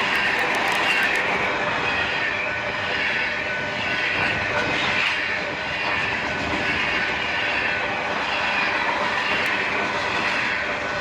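Freight cars of a BNSF manifest train rolling past: a steady loud rumble and wheel-on-rail roar, with a quick run of sharp clicks in the first second or so.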